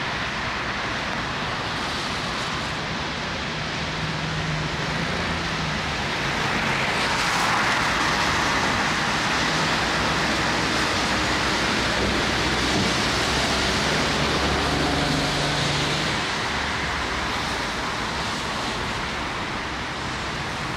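Street traffic: vehicles passing on a wet road, their tyres hissing over the asphalt with a low engine hum underneath. The hiss swells for several seconds in the middle as traffic goes by, then eases.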